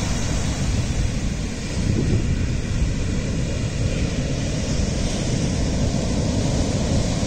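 Steady noise of waves breaking in the shorebreak and foam washing up the beach, mixed with wind rumbling on a phone's microphone.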